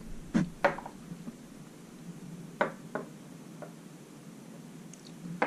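Old glass bottles being handled and set down on a wooden desk: several short, light knocks of glass on wood.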